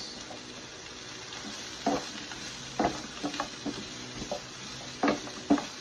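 Chicken and vegetables sizzling steadily in a nonstick frying pan while a wooden spatula stirs them, with several short scrapes and knocks of the spatula through the food.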